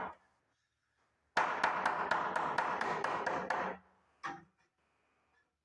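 A hammer pounding a 2x4 into a doorway frame in rapid blows, about four or five a second, in two runs with a pause between, then one short knock.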